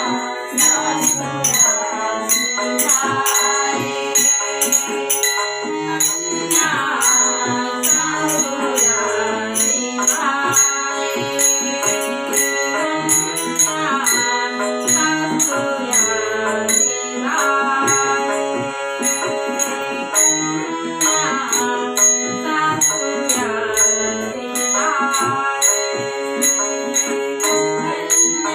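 Instrumental interlude of a Marathi song: melodic lines, some gliding, over a steady beat of jingling percussion, with no singing.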